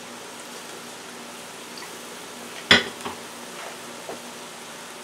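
Fried rice frying faintly in a hot stainless frying pan on a gas stove, a low steady sizzle as olive oil is drizzled over it. A single sharp knock comes a little past halfway.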